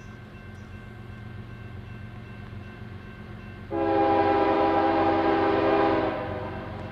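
Diesel locomotive's multi-chime air horn sounding one long blast, a chord of several notes, starting a little past halfway through, over the low rumble of the approaching train.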